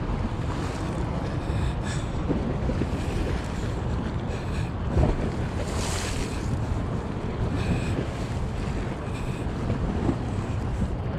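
Wind buffeting the microphone, a steady low rumble that surges briefly about halfway through.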